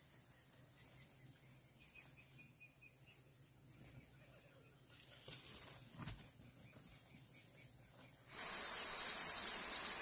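Faint steady insect trilling with brief rustling about five seconds in. About eight seconds in, it gives way to a much louder, steady, high insect buzz.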